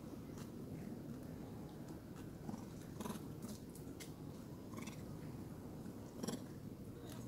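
Long-tailed macaques in a close group: a steady low rumble with a few short high squeaks, the clearest a little after six seconds.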